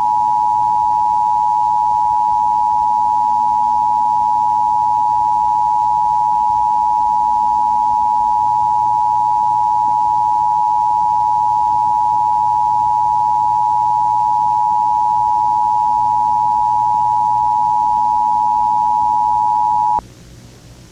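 Emergency Broadcast System Attention Signal: two steady tones (853 and 960 Hz) sounded together. It is loud and unchanging for about twenty seconds, then cuts off suddenly near the end. It signals that an emergency action notification is about to be broadcast.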